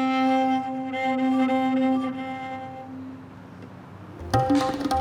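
A viola holds one long bowed note that fades away over about three seconds. About four seconds in, tabla drumming starts with sharp strokes.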